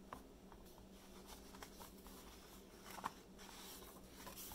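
Faint handling of a paper picture book as a page is turned: soft paper rustles and small clicks, the sharpest about three seconds in.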